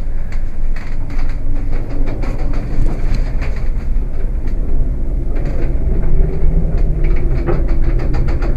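Gale-force wind, gusting around 35 to 40 knots, blowing across an anchored catamaran: a loud, continuous low rumble of wind buffeting, with irregular knocks and rattles in the second half.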